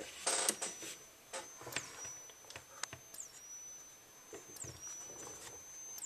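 Wheelock WS-24VDC strobe's charging circuit giving a faint, steady high-pitched whine that dips and recovers each time the strobe fires, about every one and a half seconds. A few faint clicks sound between flashes.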